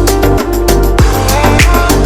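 Background music: an electronic track with a steady, driving beat, deep bass and sustained melodic notes.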